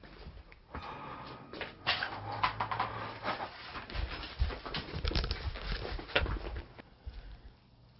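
Rustling, scuffing and clicks from a person moving around and jostling a handheld camera, with dull thumps from about four to six and a half seconds in. The noise dies down near the end.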